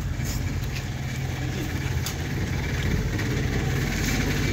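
An engine idling: a steady low hum that grows slightly louder, with a few faint clicks.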